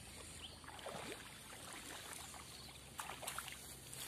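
Faint splashing and sloshing of water as a hooked snakehead is pulled in to the bank, with a few sharp clicks about three seconds in.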